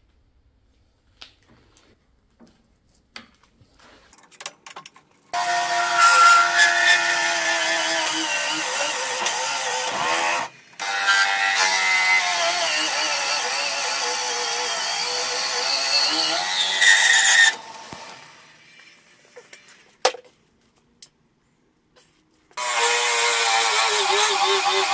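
Drill bit in a lathe's tailstock chuck boring into a spinning resin blank with golf balls cast in it: a loud cutting hiss with shifting squealing tones. It comes in three stretches, starting about five seconds in, breaking off abruptly twice and returning near the end, after near silence with a few faint clicks.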